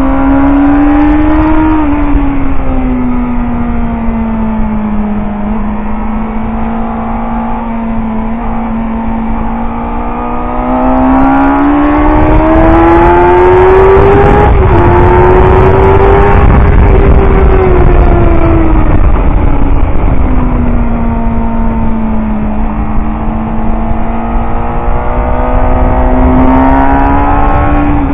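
Suzuki GSX-R750 K4's inline-four engine pulling hard around a race track, heard close up from the bike with wind rush on the microphone. Its pitch rises out of a corner at the start and falls back through the bend. About ten seconds in it climbs steeply down the straight, with a brief dip at an upshift, then drops away as the bike slows for the next turn, and it rises again near the end.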